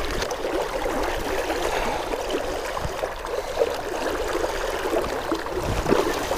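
Shallow river water flowing steadily, rippling around wading legs.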